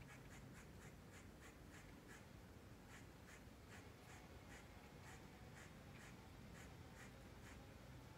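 Faint, scratchy rubbing strokes, about two or three a second, from hand work on the window frame during caulking.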